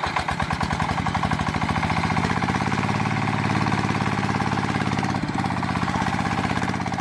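Small engine running steadily at idle, with a rapid, even pulse.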